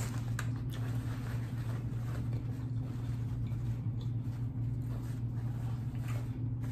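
A steady low background hum, with faint rustles of a paper towel being unfolded and wiped across the mouth.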